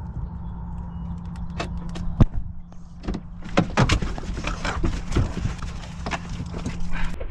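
Car door being unlatched and swung open, with a run of sharp clicks and knocks from the handle, latch and door, and dogs shifting about inside the car, over a steady low hum that cuts off near the end.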